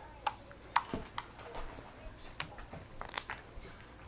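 Slime being squished and poked by hand, giving sharp wet clicks and pops spaced out, with a quick cluster of louder pops about three seconds in.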